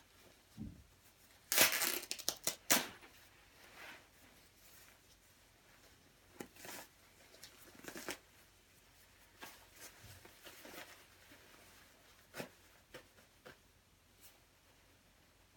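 Nylon shell of a quilted down jacket being ripped apart by hand: a loud run of several quick tears about a second and a half in, then scattered softer tears and rustling of the fabric and filling.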